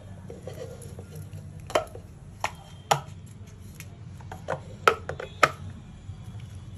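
Sharp hard-plastic clicks and knocks, about six spread over several seconds, as the motor lid of a rechargeable electric mini chopper is handled and seated onto its plastic jar of dried red chillies. A low steady hum runs underneath. The chopper's motor is not yet running.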